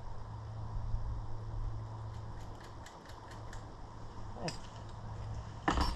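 Hand-tool work on the tractor: a run of about eight quick, light metallic clicks, then a louder clatter near the end, with a steady low hum underneath.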